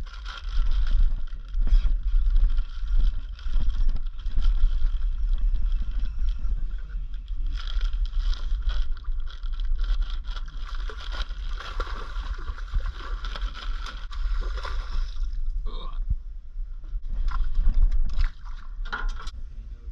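A fish being played on a baitcasting rod and reel: a steady whirr of the reel being wound over a low rumble. Near the end come a few sharp splashes as the fish is brought to the side of the boat.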